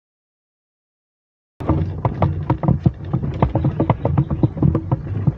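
Water slapping and knocking against a kayak's hull, a dense irregular run of knocks that starts abruptly about a second and a half in.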